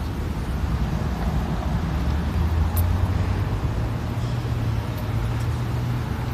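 City street traffic: a steady low rumble of vehicle engines on the road alongside.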